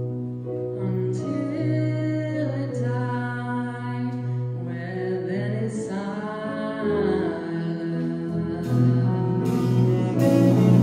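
Choir singing slow, held phrases with live band accompaniment. It grows louder near the end as cymbal crashes come in.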